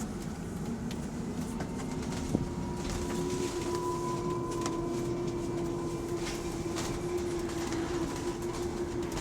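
Electric bus drivetrain whining while the bus coasts off the throttle: a steady tone with a fainter higher one above it, growing louder about three seconds in, over the rumble of the moving bus. The passenger calls it a weird noise that comes only when the bus is moving and the driver is not pressing the accelerator. There is a single sharp click a little past two seconds.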